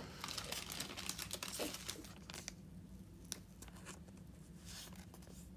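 Trading cards being handled and slid against one another: soft rustling for the first two seconds, then a few light clicks and taps.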